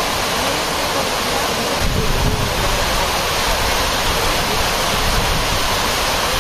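Steady hiss of heavy rain falling on a corrugated metal shed roof, with a brief low rumble about two seconds in.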